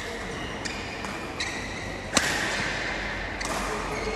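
Badminton rackets hitting a shuttlecock in a doubles rally: four sharp cracks about a second apart, the loudest about halfway through and echoing in the hall.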